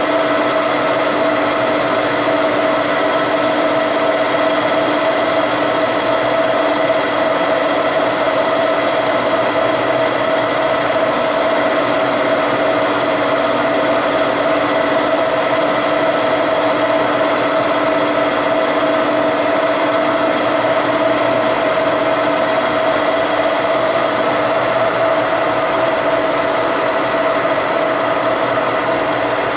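Metalworking machine tool running steadily through a long cut in steel, a constant hum with a steady whine.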